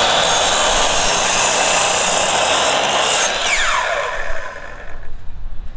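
Compound miter saw cutting through a 2x10 board: the motor's high whine runs steady under the noise of the blade in the wood. About three and a half seconds in, the motor is let off and its whine falls away as the blade spins down.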